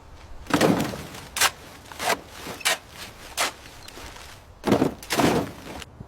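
A series of about seven irregular thumps and knocks, a few of them slightly drawn out, with the loudest pair near the end.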